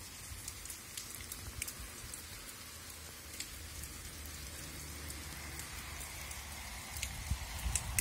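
Steady rain falling on the leaves and soil of an orchard, with scattered single drops striking sharply close by.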